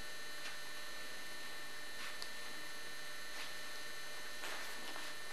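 Steady electrical mains hum and hiss on the recording, with a few faint, short rustles as a book is handled.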